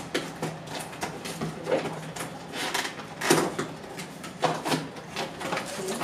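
Cardboard box being opened by hand: flaps pulled up and bent back, with irregular scraping and rustling of cardboard. The loudest scrape comes about three seconds in.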